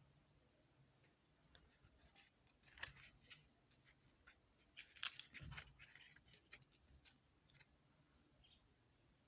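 Faint crinkling and clicking of a CD booklet's paper pages being handled and turned, in two clusters of small sounds about two and five seconds in.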